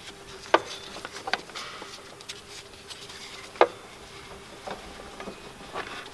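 Scattered light clicks and knocks from hands routing a new serpentine belt over the engine's pulleys, the sharpest about three and a half seconds in, over a faint steady hum.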